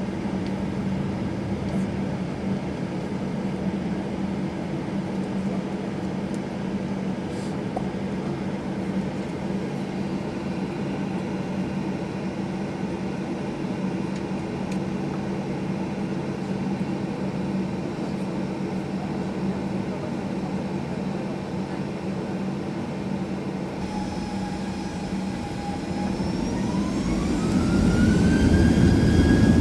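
Cabin noise of a Boeing 737-800 with its CFM56 turbofan engines running at low power, a steady hum. Near the end the engines spool up for takeoff: a whine rises in pitch and the rumble grows louder.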